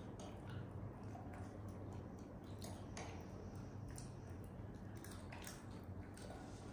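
Faint, irregular soft clicks and wet squishing, the sounds of a monkey eating soft rice mashed with pumpkin, over a steady low hum.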